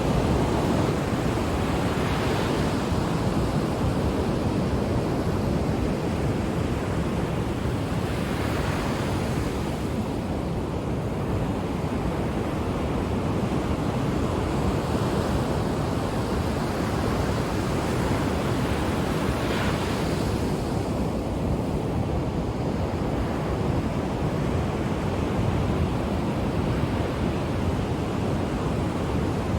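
Ocean surf: a continuous wash of waves breaking on the shore, with a few breakers standing out a little louder, about two, eight and twenty seconds in.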